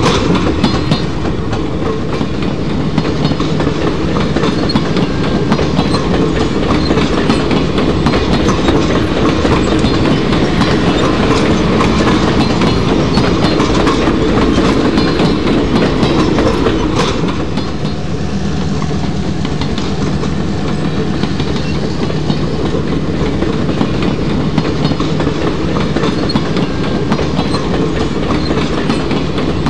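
HO scale model freight train rolling past, its metal wheels clicking rapidly and steadily over the track joints. A steady low hum joins a little past halfway.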